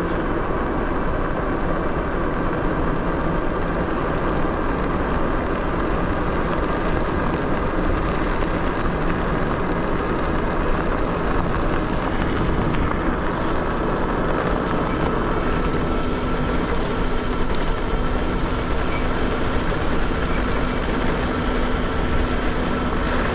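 Steady wind and road noise from riding an electric bike driven by a Bafang G62 hub motor, with a faint, steady whine from the motor running underneath.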